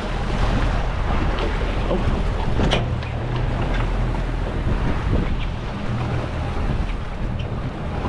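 Fishing boat's engine running with a steady low hum, under wind buffeting the microphone and sea noise. A sharp click stands out a little under three seconds in.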